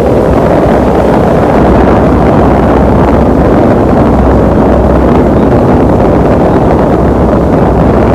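AquaLink II passenger boat running steadily, a loud constant rumble of engine and water with wind buffeting the microphone.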